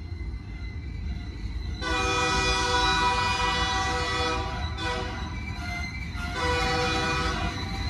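Freight train rolling past with a steady low rumble of wheels on the rails. About two seconds in, the locomotive's multi-chime horn sounds from up the line in long blasts with short breaks, the loudest sound.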